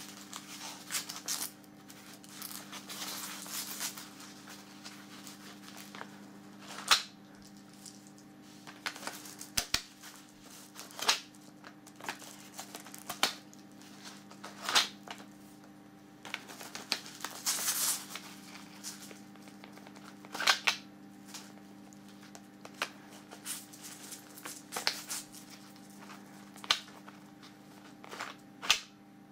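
Handling noise of shotgun shells in a duct-taped cardboard pouch: irregular sharp clicks and taps every few seconds as shells drop in and are pulled out, with stretches of papery rustling.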